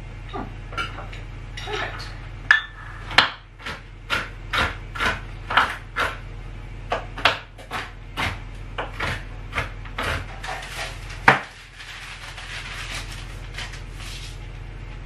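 Kitchen knife chopping pistachios on a plastic cutting board: a run of sharp knocks, about two a second, ending in one louder knock. Then, near the end, paper rustling as baking parchment is pressed into a metal tray.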